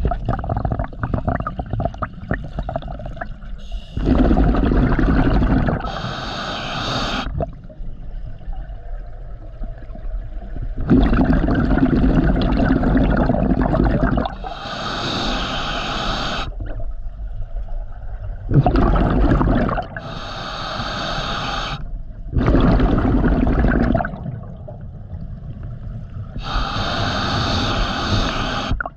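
Scuba diver breathing through a regulator: slow breath cycles, each a hissing inhale and a rushing, bubbling exhale, about four breaths several seconds apart.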